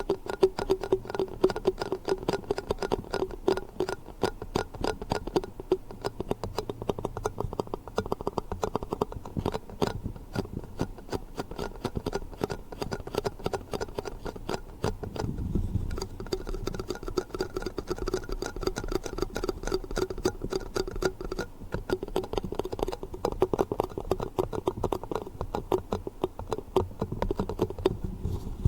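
Fast, continuous tapping on plastic yogurt cups: a dense run of quick clicks over a steady hollow ring.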